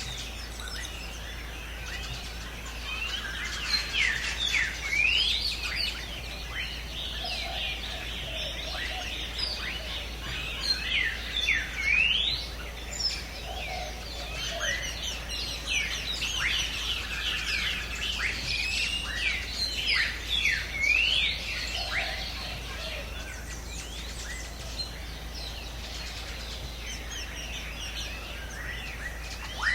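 A chorus of birds calling in a forest, with many quick sweeping chirps overlapping, busiest through the middle and thinning out near the end. A few lower, softer calls come in three times.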